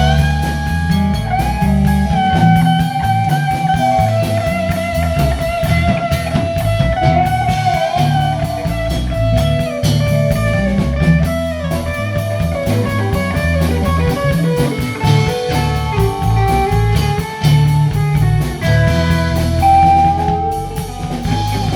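Rock band instrumental break: an electric guitar plays a lead solo of held, bending notes over bass guitar and drums.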